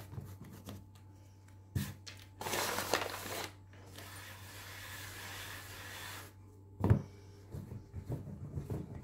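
Hands working pastry dough on a floured wooden board. A rubbing hiss as flour is swept across the board, then a sharp thump about seven seconds in, the loudest sound, as the dough is put down, followed by soft pats as the palms press it flat.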